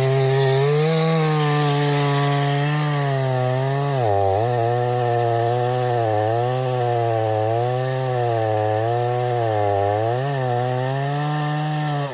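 Craftsman two-stroke chainsaw cutting through a silver maple trunk under load, its engine note sagging and recovering as the chain bites, with deeper dips about four seconds in and again near the end. The chain might be a little dull after a full day's cutting. The sound stops abruptly just before the end.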